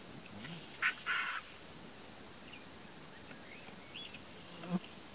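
Vultures squabbling at a carcass: two harsh, hissing squawks about a second in, then quieter feeding, with faint short chirps in the middle and one more short, sharp call near the end.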